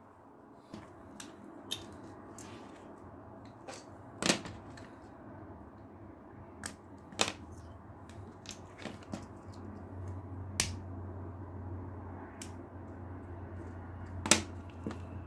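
Scattered sharp clicks and taps of small leatherworking tools and parts being handled and set down on a cutting mat, the loudest about four seconds in and near the end, over a low steady hum.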